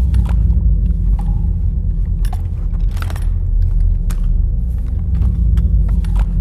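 Irregular clanks and rattles of a folding playard's frame being wrestled with, over a low, steady rumbling drone.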